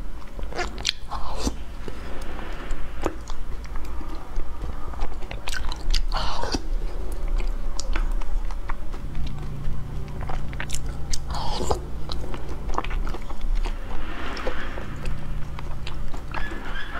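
Close-up mouth sounds of eating thick, gooey brown sugar lotus root starch paste off a spoon: wet smacking and chewing with many small clicks, and a couple of longer slurps about six and eleven seconds in.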